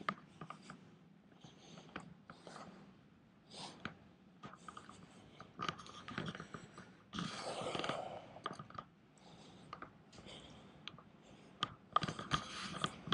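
Irregular rustling, scratching and clicking from a handheld camera's microphone being handled while walking, with a longer, louder rush about seven seconds in.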